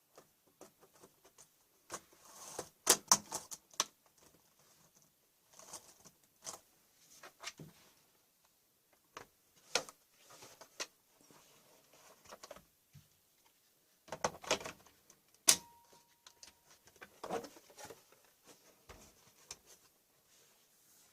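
Laptop keyboard and case being handled and pried: scattered clicks, taps and rattles of plastic and metal, busiest about three seconds in. One sharp click about fifteen seconds in is followed by a brief ringing tone.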